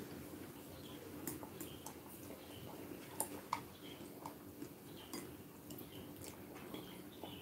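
Quiet eating sounds: wooden chopsticks clicking lightly against a ceramic bowl and soft chewing, a scattered series of short clicks.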